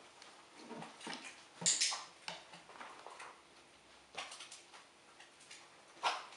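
A few scattered sharp clicks and light taps, the loudest about a second and a half in, with soft rustling between.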